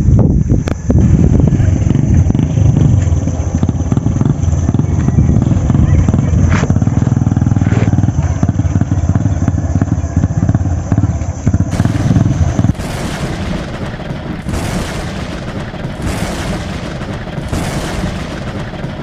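A steady, engine-like low rumble with wind on the microphone for about twelve seconds, then a cut to an outro sound effect of fireworks: noisy booming swells about every second and a half, fading out at the end.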